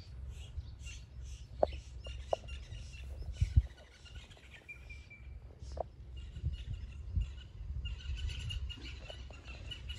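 Wild birds chirping and calling: short high chirps and thin whistled notes, with a few sharper, louder notes in the first four seconds, over a steady low background rumble.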